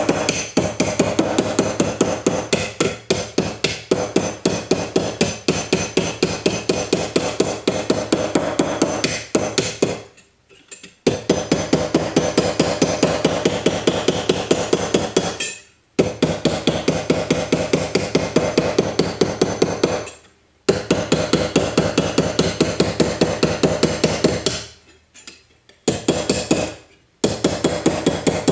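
Ball-peen hammer striking the edge of a reticulated silver cuff on a steel bench block in fast, even blows, about four a second, with a metallic ring. The blows come in several runs broken by short pauses. They are thickening and widening the cuff's edge.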